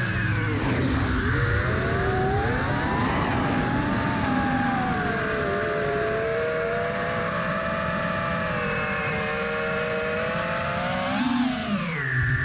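5-inch FPV racing quadcopter's brushless motors (T-Motor P2306 1950Kv) and propellers whining, the pitch dropping and climbing with the throttle, over a low rush of wind. The pitch holds fairly level through the middle and dips near the end.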